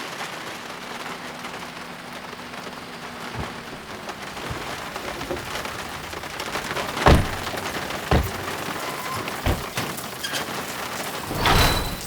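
Steady rain falling, with a few sharp knocks scattered through it and a louder rustle near the end.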